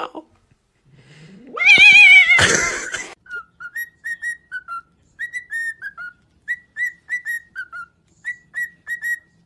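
A loud wavering cry about a second in, then a cockatiel whistling a tune in short, clear notes, grouped in twos and threes, some sliding down in pitch.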